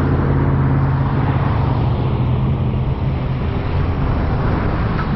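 Car engine running with road noise: a steady low hum that fades out about two and a half seconds in, leaving an even rushing noise.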